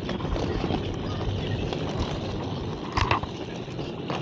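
Suitcase or luggage-trolley wheels rolling over pavement with a steady rumble, with a sharp knock about three seconds in and a smaller one near the end.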